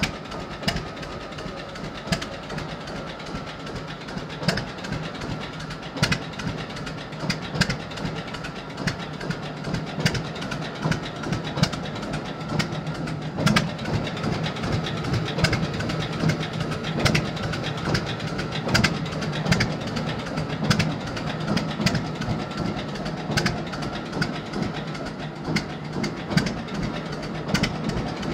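John Deere D tractor's two-cylinder engine idling with a steady low chugging, with sharp pops every second or so.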